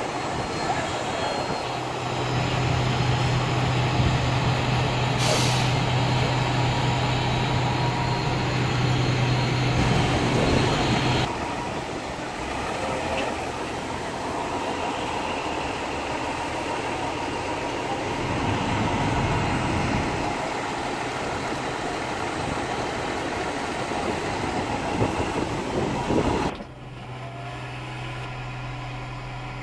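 Fire trucks' diesel engines running at a steady low hum, with a short hiss of air brakes about five seconds in, then the trucks moving off amid traffic. Near the end the sound drops suddenly to a quieter steady hum heard from inside a following car.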